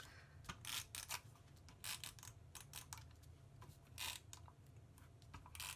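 Handheld adhesive tape runner clicking as it is pressed and run along a strip of cardstock, laying down short tabs of adhesive: a run of irregular faint clicks with a few brief rasps.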